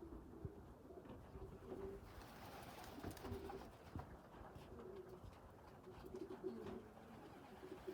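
Racing pigeons cooing faintly: a run of short low coos repeating every second or so, with a soft hiss underneath.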